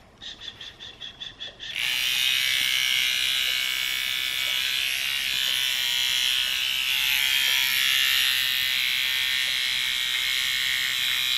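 Small electric pet trimmer switched on about two seconds in and running steadily with a high buzz as it shaves the short hair under a Shih Tzu's nose by the lips. Before it starts there is a quick run of soft ticks, about five a second.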